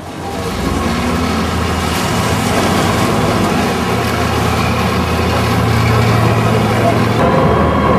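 Engine of a Venetian vaporetto water bus running close by, with water churning in its wake. It is a loud, steady low hum under a wash of noise.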